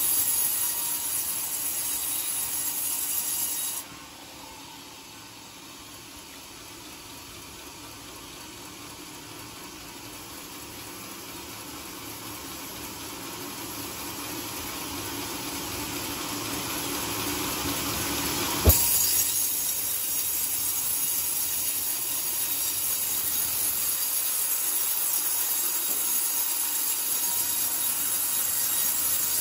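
Band sawmill blade running through a coconut-palm log, a steady hissing whine. It drops suddenly a few seconds in and builds back up gradually. A single sharp click comes about two-thirds of the way through, after which the louder hiss resumes.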